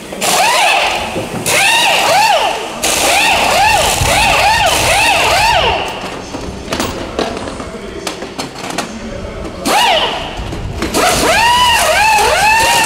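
Pneumatic impact wrench on the wheel nuts during a pit-stop tyre change, fired in rapid short bursts that each rise and fall in pitch, with knocks of the wheel being handled. The bursts stop about six seconds in and start again about ten seconds in.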